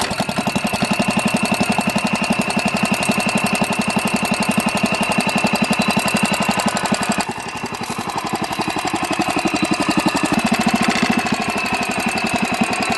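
Wheel Horse garden tractor engine running with an even, rapid firing beat right after starting. It runs smoothly with its breaker-point gap just narrowed, the fix for its misfire under load. The engine note drops about seven seconds in and picks up again near ten seconds.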